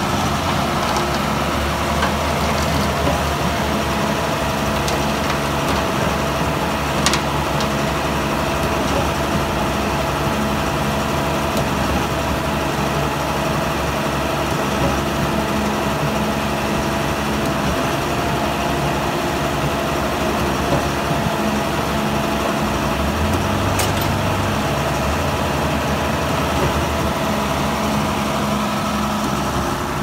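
Truck-mounted concrete mixer pump running steadily with an even engine hum, with two brief sharp ticks well apart.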